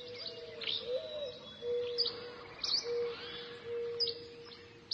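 Birds chirping: short, sharp, high chirps about once a second over a lower held, wavering note.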